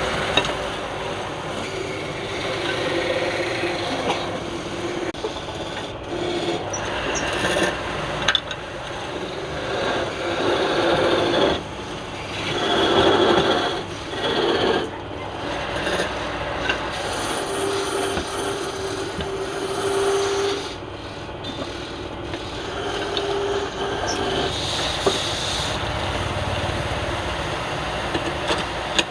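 Wood lathe running while a tool scrapes against the spinning wood: a continuous rasping over a steady hum, swelling louder a few times near the middle.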